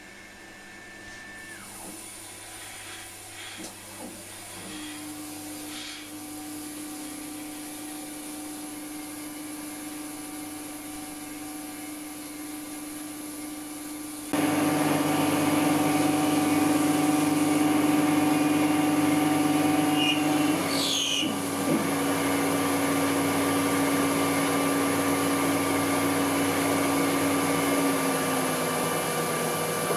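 Denford Novaturn CNC lathe running a short G-code program: a steady whine from the spindle and drives over a hum. It gets much louder about halfway through, with a brief falling sound about two-thirds of the way in. Near the end the main tone slides down and stops.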